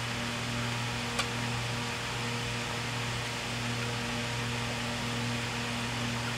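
Steady room hum and hiss, with one light click about a second in as a screwdriver works screws into the cast-iron lathe gearbox housing.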